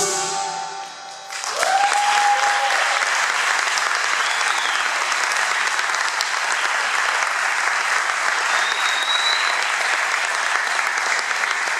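The final notes of the music ring out and die away, then about a second and a half in an audience breaks into steady applause, with a few high whistles heard over the clapping.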